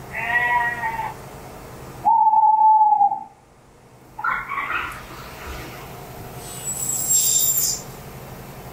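Recorded animal calls played one after another from an interactive whiteboard's click-the-animal sound game. There are four short calls: the first right at the start, a steady hoot-like tone about two seconds in, another call around four seconds, and a high whistle-like call near seven seconds.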